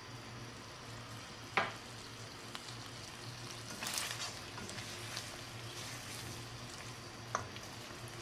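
Chicken pieces sizzling in oil in a nonstick pan while curry powder is stirred in with a silicone spatula, with a louder stretch of stirring and scraping about four seconds in. Two sharp knocks break in, one about one and a half seconds in (the loudest sound) and one near the end.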